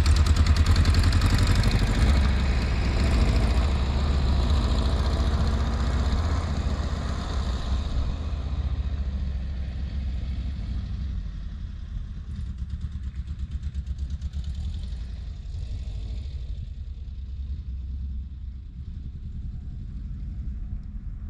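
A car engine running with an even, pulsing exhaust beat. It grows steadily fainter as the car moves away.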